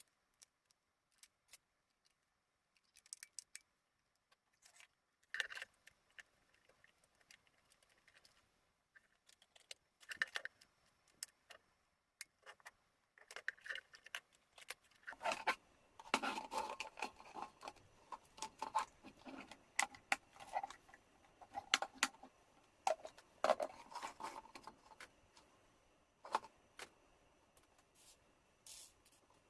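Intermittent clicks, taps and scraping of small hard parts being handled, sparse at first and a busier run of clattering in the second half.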